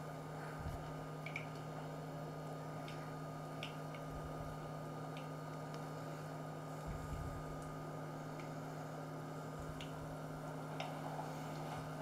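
Soft squishing of sticky pumpkin-and-starch dough being rolled and pressed flat between the palms, with a few faint ticks and soft thuds, over a steady electrical hum.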